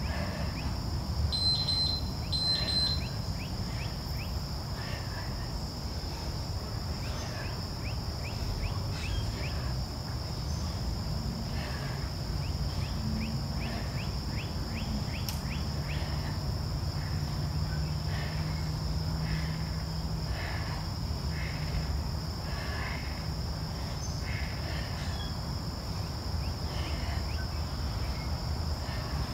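Insects chirring steadily over a low hum. About a second and a half in, a Gymboss interval timer gives two short, high beeps, marking the start of a work interval.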